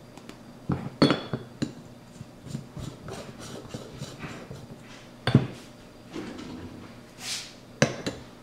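Clinks and knocks of metal espresso tools set on and against a portafilter and its dosing ring: a few sharp taps about a second in, a louder knock midway, a brief scrape and two more knocks near the end.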